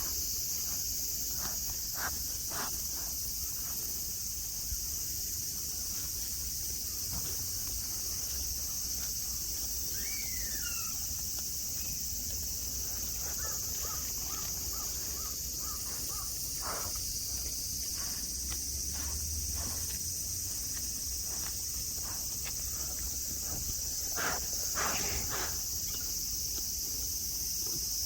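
A chorus of cicadas keeps up a steady, high-pitched drone, with a few faint short chirps and ticks scattered through it.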